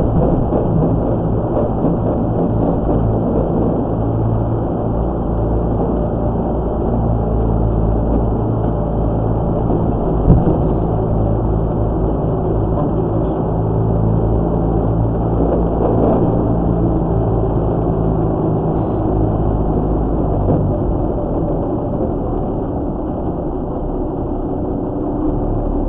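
Military 6x6 truck's engine running steadily with a deep, even drone, with one sharp knock about ten seconds in.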